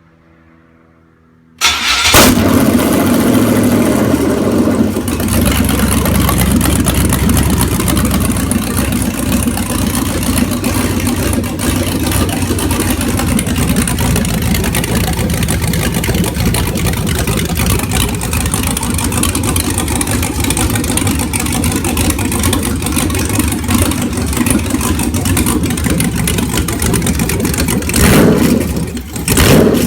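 Freshly rebuilt 6.0 L LQ4 V8 on an engine stand fires about two seconds in on its first start and keeps running loudly through open exhaust manifolds with no pipes fitted. Near the end the sound drops briefly, then surges again. It is running on a universal 5.3 tune not matched to its cam, a tune the owner doesn't like.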